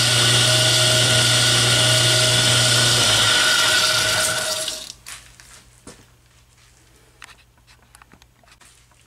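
Atlas 10-inch metal lathe running at low speed while power-tapping a 1/4-28 thread, a steady motor hum with a whine over it. About four and a half seconds in the motor is shut off and the sound dies away, leaving a few light clicks.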